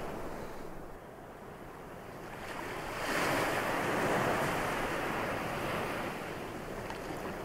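Ocean surf washing onto a shore, one wave building and breaking about three seconds in, then slowly fading.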